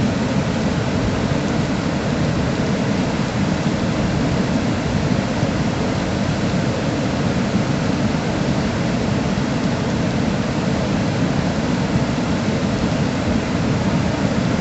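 Muddy flash-flood water rushing past in spate, a steady dense noise deepest in the low range.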